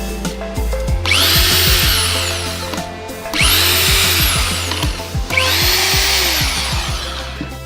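AEG KH 24 IE SDS-Plus rotary hammer's motor run up three times, its whine climbing quickly in pitch on each trigger pull and falling away as it is released, over background music.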